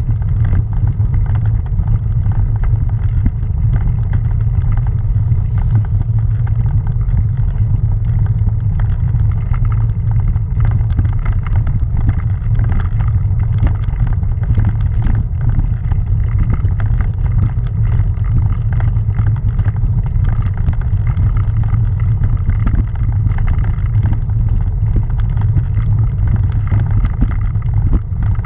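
Bicycle-mounted camera rattling over granite cobblestones on a climb: a steady deep rumble laced with dense, fast clicks from the bumpy road surface.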